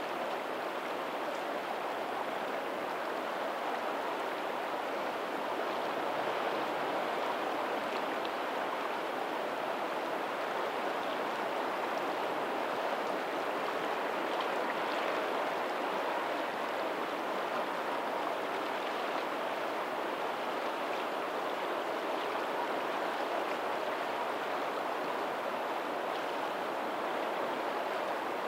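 Steady rush of shallow water from a lagoon's tidal outflow running past a pebbly shore, swelling and easing gently, with faint ocean surf behind it.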